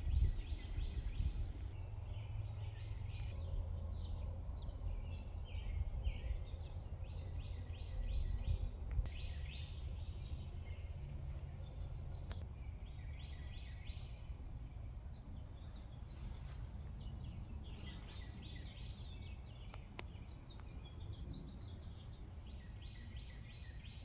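Outdoor ambience: repeated short high chirping trills, each about a second long and recurring every few seconds, over a steady low rumble.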